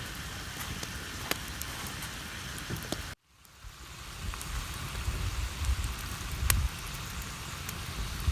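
Ground sausage sizzling in a cast iron skillet over a campfire: a steady, rain-like hiss with occasional sharp pops. The sound cuts out for a moment about three seconds in and then resumes, with low rumbling in the second half.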